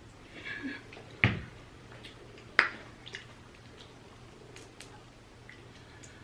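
Close-miked mouth sounds of eating seafood: a short wet chewing sound, then two sharp smacks about a second and two and a half seconds in, with a few fainter clicks after.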